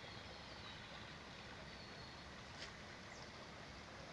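Faint steady rush of creek water, with a few faint high, falling chirps over it.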